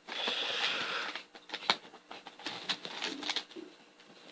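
Packaging being handled: a rustle for about the first second, then scattered light clicks and taps.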